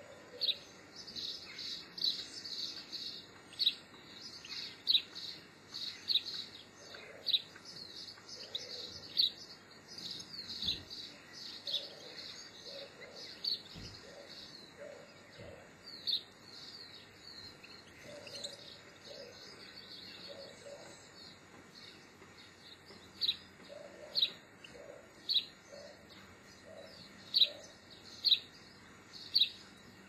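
Small garden songbirds calling: a busy run of short, high chirps that thins out after about ten seconds. Near the end, one loud sharp chip repeats about once a second.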